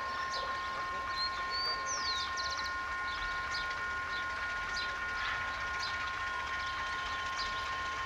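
Distant ALCo RSD16 diesel locomotive approaching with an empty train: a low rumble under a steady high ringing tone, with short bird chirps over it.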